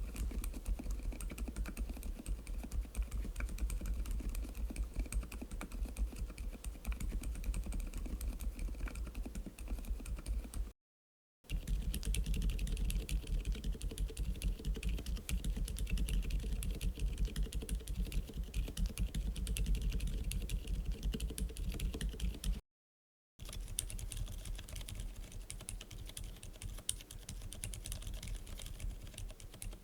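Typing on a mechanical keyboard with Outemu Ice Snow silent linear switches: a fast, steady run of soft, damped keystrokes. It comes in three takes, cut apart by two brief gaps of silence about eleven and twenty-three seconds in, and the last take is quieter.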